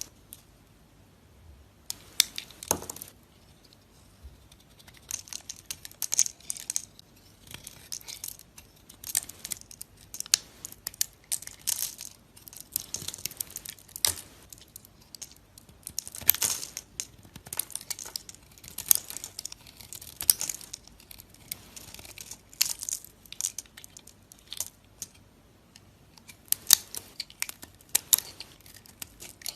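Dry soap being cut and scraped with a knife: an uneven run of crisp crackling, crunching strokes.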